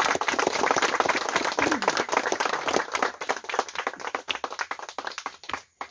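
A crowd clapping by hand in applause, dense at first, thinning to a few scattered claps near the end and then stopping.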